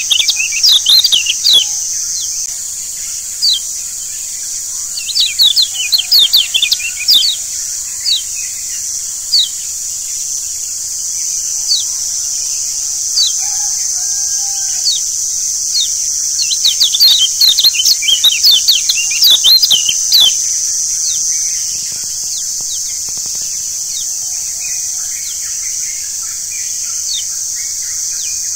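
Lombok yellow white-eye (kecial kuning) singing: bursts of rapid, high, twittering chirps a second or few long, repeated through the stretch, over a steady high-pitched hiss.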